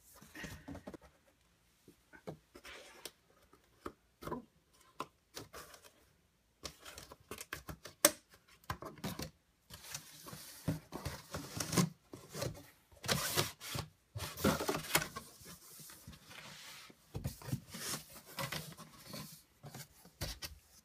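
Cardboard boxes being handled and opened: flaps pulled back, cardboard scraping and rubbing, with scattered knocks and one sharp knock about eight seconds in.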